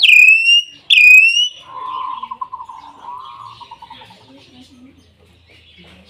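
Common hill myna (beo) calling: two loud, clear whistles, each starting high and dropping sharply before holding steady, followed by a lower, wavering, pulsing call that fades out.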